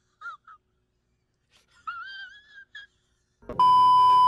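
A thin, wavering high-pitched whine in two short stretches. It is followed by a loud, steady 1 kHz TV test-tone beep over static, lasting about a second and cutting off suddenly.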